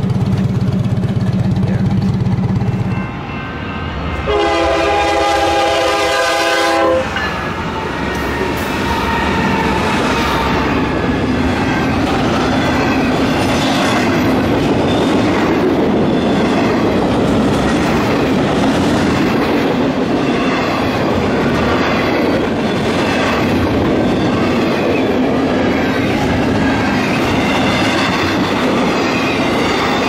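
A motorcycle trike's engine idles for the first three seconds. After a cut, a train horn sounds once for about three seconds. Then a long intermodal freight train rolls steadily past at a grade crossing, its wheels running over the rails.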